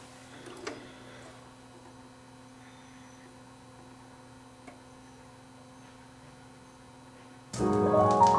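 A couple of light clicks as the turntable's tonearm is handled, then a faint steady hum while the stylus settles. About seven and a half seconds in, music from the vinyl record starts suddenly and loud, keyboard notes climbing in a quick rising run.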